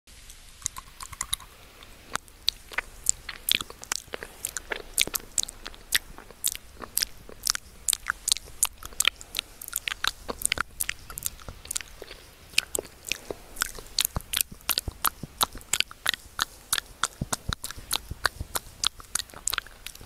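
Candy being crunched and chewed close to a wired earphone's inline microphone: a dense, irregular run of sharp crunches and clicks, several a second.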